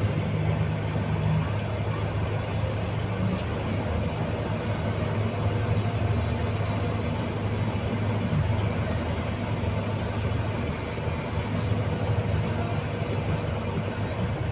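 Heavy truck's diesel engine running steadily at low speed, heard from inside the cab as the truck creeps along; a constant low drone.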